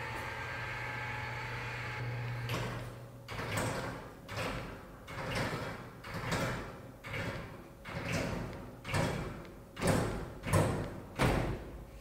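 An electric attic lift's motor hums steadily and stops about three seconds in. A run of about a dozen short swishing strokes follows, a little over one a second, growing louder toward the end.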